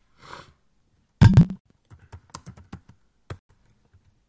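Computer keyboard being typed on: one loud, heavy keystroke about a second in, then a run of lighter key taps over the next two seconds.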